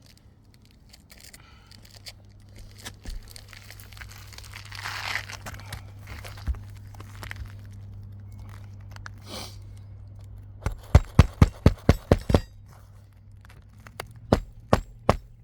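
Hammer driving roofing nails into an asphalt shingle: crinkling of the lifted shingle, then a fast run of about ten strikes past the middle and a few more near the end.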